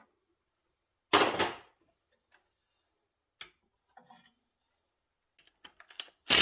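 Small metal engine parts and hand tools clinking and being set down: one loud clatter about a second in, a few light clicks, then another loud clatter at the very end.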